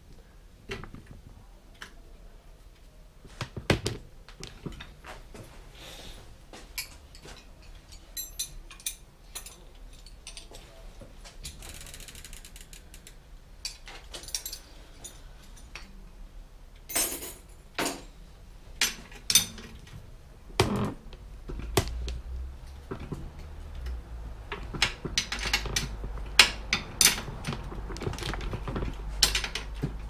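Bicycle rear hub (a Shimano Nexus 3-speed) ticking as the wheel and cranks are turned by hand on a repair stand, with scattered knocks and clicks of parts and tools; the ticking gets denser in the last few seconds.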